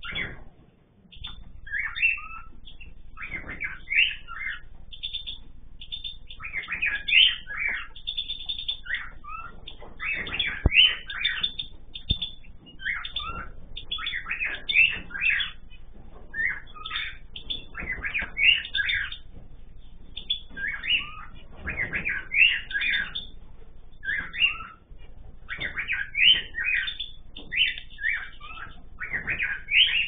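Mixed aviary birds, cockatiels and small finches, chirping and calling in frequent short bursts.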